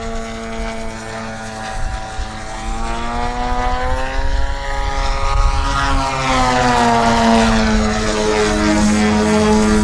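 AJ Laser 230 radio-controlled aerobatic model plane's engine and propeller running in flight, a steady buzzing note whose pitch climbs about halfway through and then slowly sinks.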